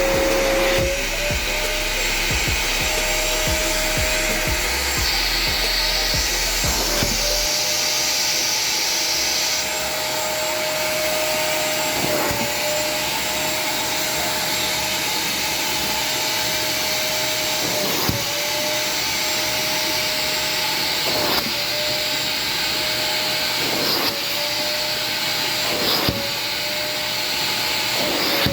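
Vacuum cleaner fitted with an upholstery extractor nozzle, running steadily. Its motor tone dips briefly every few seconds.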